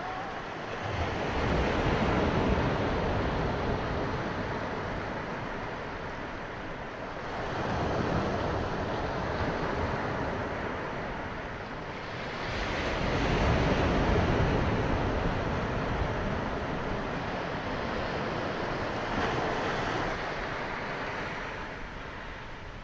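Small waves breaking and washing up a sandy beach, the surf swelling and fading four times, about every five to six seconds.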